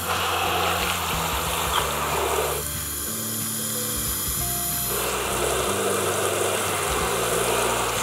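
Water pouring onto a plastic toy garbage truck and splashing on wet pavement, in two spells: one that stops about two and a half seconds in, and another that starts about five seconds in. Background music with steady notes plays underneath.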